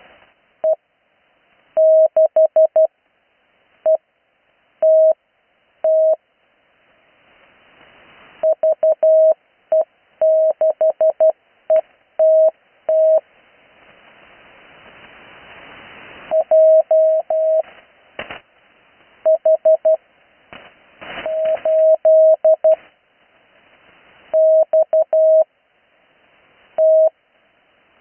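Slow Morse code on the 80 m band: a single steady tone keyed on and off in short and long elements, grouped into characters. Band hiss swells in the longer gaps between characters, and a couple of static crackles come about two-thirds of the way through.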